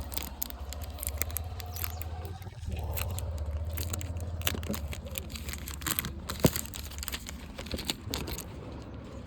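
Close handling noise of a phone and its packaging: irregular crinkling, scraping and small clicks, with one sharper click about six and a half seconds in, over a steady low hum.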